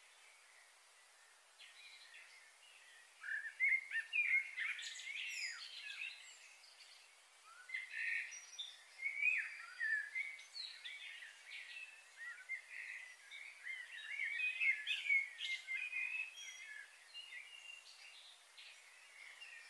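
Small birds chirping and singing in many quick, varied short notes, starting about three seconds in and carrying on through most of the stretch.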